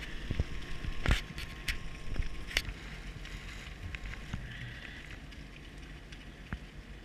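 Rigid inflatable boat coming alongside a ship's hull: a steady low rumble and water hiss, with a few sharp knocks in the first three seconds, growing quieter toward the end.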